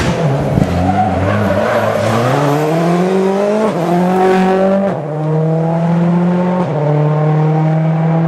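Ford Focus RS WRC rally car's turbocharged four-cylinder engine accelerating hard past at full throttle, its note climbing over the first few seconds, then falling in steps as it changes up through the gears.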